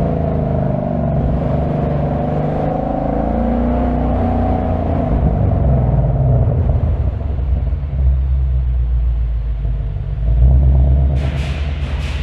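2025 Ford Mustang GT's 5.0-litre V8 running while driving, a deep exhaust rumble whose pitch wavers and shifts as it moves through the gears. A short crackling burst comes about eleven seconds in.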